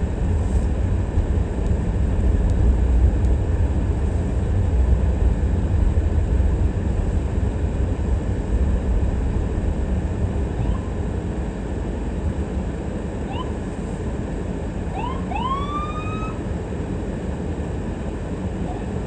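Steady low rumble of a car driving on city streets. About two-thirds of the way through, a few short rising siren whoops sound, the last one the longest.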